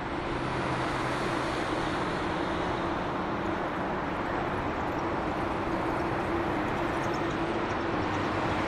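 Boeing 787-8 airliner's jet engines running at low taxi thrust: a steady rushing noise with a low, even hum under it.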